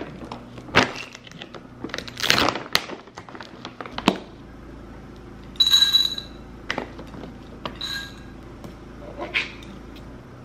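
Dry dog kibble poured from its bag into a ceramic dog bowl, two short clattering pours that set the bowl ringing, the first about five and a half seconds in and the second near eight seconds, after a few knocks and a rustling scrape as the bowl and bag are handled. An air conditioner hums steadily underneath.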